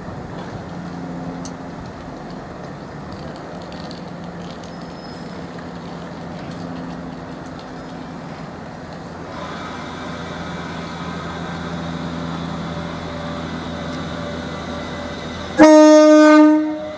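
Train's horn sounding one loud, held note for about a second near the end, over the steady hum of a train running at the platform.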